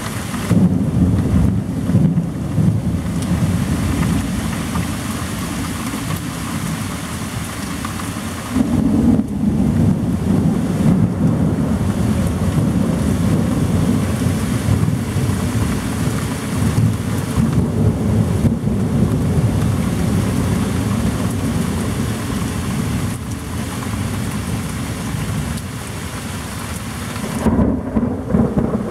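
Thunderstorm: steady heavy rain with rolling thunder rumbling through it, swelling loudest about half a second in, again around nine seconds in, and near the end.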